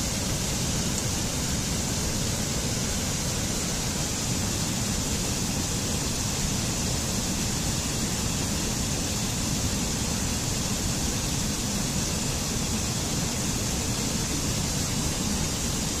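A waterfall rushing steadily, an even noise that does not change.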